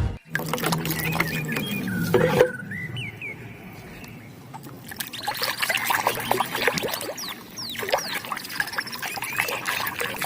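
Water pouring and trickling, with small splashes and clicks, as a muddy plastic animal toy is rinsed by hand.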